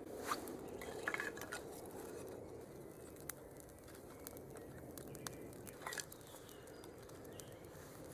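Newly lit campfire of birch bark and kindling burning, with a low steady rush and scattered sharp crackles and pops.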